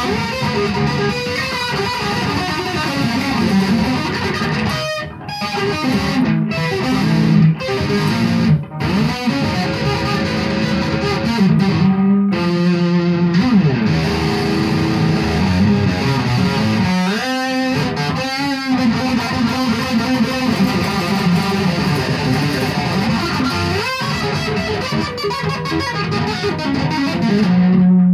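Electric guitar, a 1966 Gibson Les Paul Custom, played through an amplifier: lead lines and chords with a few brief stops, and wavering bent notes about seventeen seconds in.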